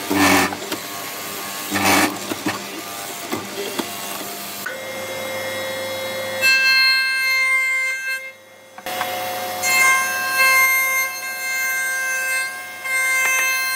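A benchtop hollow-chisel mortiser's motor running as its chisel is plunged into a wooden rail twice. About halfway through, background music with long held notes takes over.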